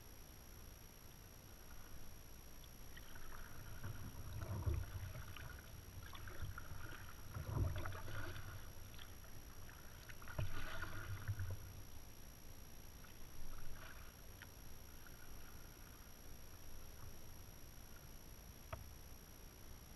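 Kayak paddle strokes in calm water: the blade dips and splashes about three times, a few seconds apart, then quieter drips and small splashes.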